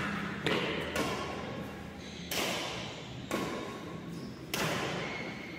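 Badminton rackets striking a shuttlecock in a rally: five sharp hits, spaced about one to one and a half seconds apart, each echoing briefly around a large hall.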